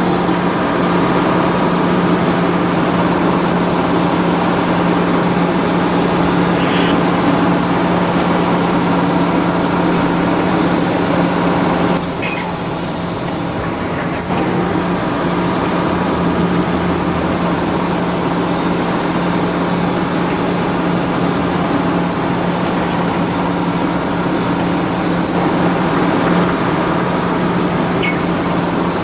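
Radio-controlled model excavator running steadily, its motors giving a constant hum under a dense mechanical noise. The sound drops suddenly about twelve seconds in and comes back up a couple of seconds later.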